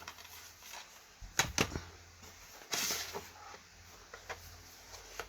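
Plastic DVD cases being handled: two light clicks about a second and a half in, then a short rustle as a case slides, with a few faint ticks after.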